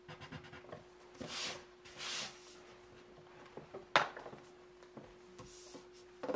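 Wax crayon scraping on paper in two short strokes, then a single sharp tap about four seconds in, over a faint steady hum.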